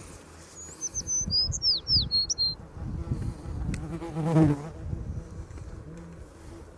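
A small songbird gives a quick run of high, downward-slurred chirps in the first couple of seconds. About four seconds in, a flying insect buzzes past, its buzz rising and falling in pitch. Irregular low rumbling runs underneath.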